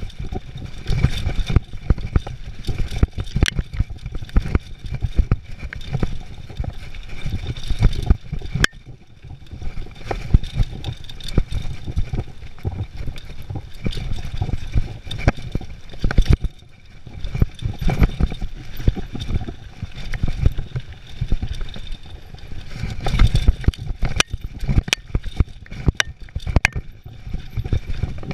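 Mountain bike descending a dirt trail at speed: wind buffeting the microphone and tyres rumbling over the dirt, with the bike rattling and sharp clacks as it hits roots and rocks, several in quick succession near the end.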